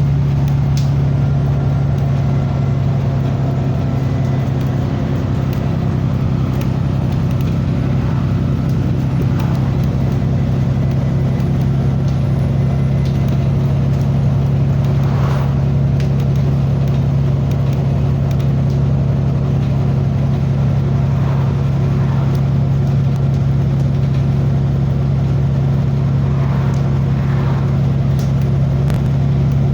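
Vehicle engine running at a steady pitch, with a loud, constant low drone.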